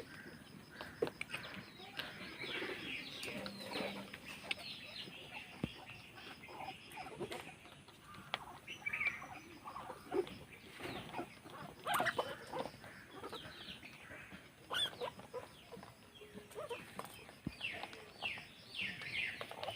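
A group of guinea pigs squeaking together: many short, high calls overlapping one another without pause.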